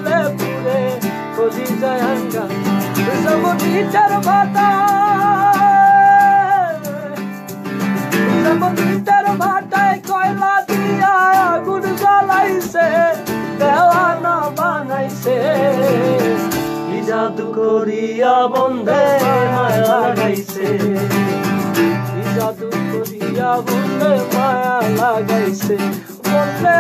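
Male voice singing a Bangla folk song with vibrato, accompanied by a strummed acoustic guitar.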